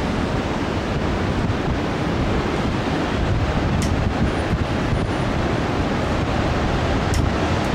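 Steady wash of heavy surf breaking along the beach, mixed with wind buffeting the microphone.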